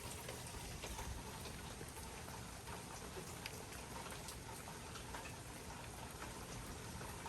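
Light rain falling steadily, with individual drops tapping now and then.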